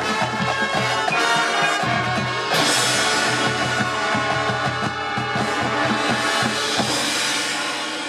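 A high school marching band playing: brass holding chords over a steady, driving drumline beat. A loud crash comes in about two and a half seconds in, and the full band carries on after it.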